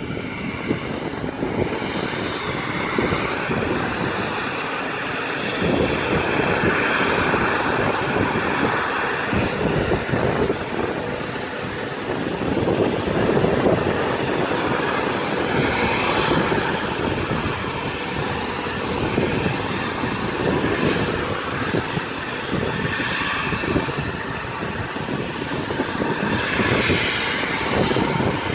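Bombardier CRJ-700 regional jet's twin GE CF34 turbofan engines running loud and steady, a jet roar with a whine that shifts in pitch.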